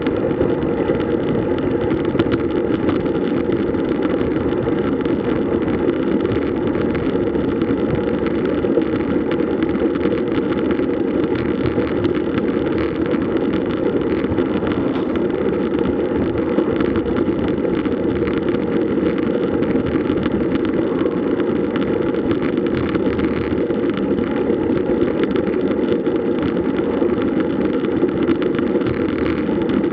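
Steady wind rush on a camera microphone carried along on a road bike ride, loud and unbroken.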